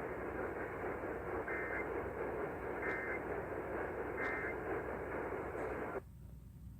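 Emergency Alert System End of Message signal: three short bursts of warbling data tones about 1.4 s apart, closing the required monthly test. The bursts sit over a steady hiss of received radio audio, which cuts out about six seconds in.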